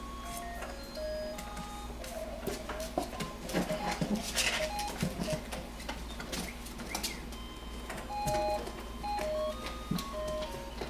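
A simple electronic tune of short beeping notes at changing pitches, like a baby toy's melody, with scattered clicks and knocks from puppies scrambling over plastic toys.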